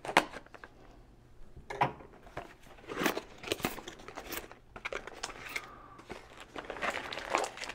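Paper wrapping crinkling and rustling in short, irregular bursts as a small packed part is unwrapped by hand.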